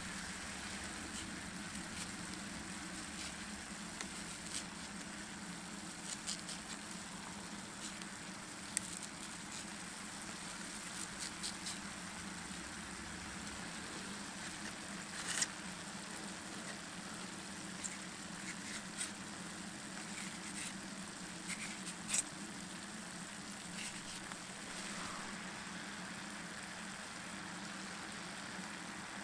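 Ground meat sizzling in a frying pan, a steady hiss dotted with small crackling pops and a few sharper clicks.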